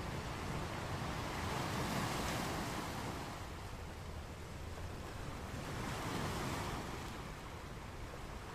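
Sea waves washing with wind on the microphone, a steady rushing noise that swells twice, about two seconds in and again around six seconds.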